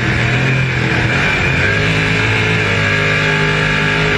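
Race car engine running hard, heard from the open cockpit, its pitch climbing about a second and a half in.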